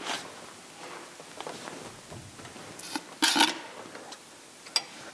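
Small metallic clicks and knocks of a wrench working a brake caliper's bleeder screw, with a short hiss about three seconds in as the screw is cracked open and brake fluid spurts out under a held pedal.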